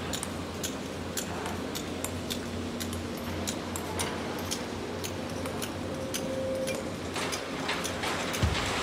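Sany hydraulic excavator's diesel engine running with a steady low hum, under scattered sharp clinks of rock. About seven seconds in, a louder rushing pour begins as the bucket's load of rock and sand is dumped into a dump truck's bed.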